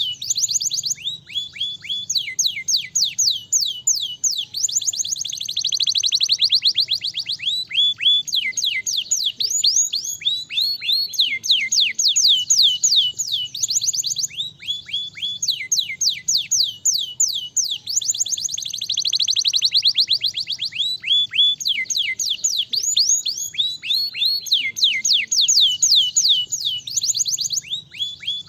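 Domestic canary singing nonstop: rapid trills of falling whistled notes, about ten a second, grouped in runs that change pace. Twice the song breaks into a faster, denser roll.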